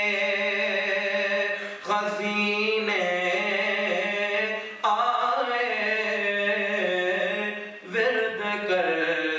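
A man's solo voice chanting a devotional recitation into a microphone, in long held, bending melodic phrases that pause briefly for breath about every three seconds.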